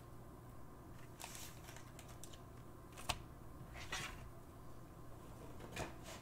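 A few faint clicks and rustles of hands handling things on a desk, with a sharper click about three seconds in, over a low steady hum.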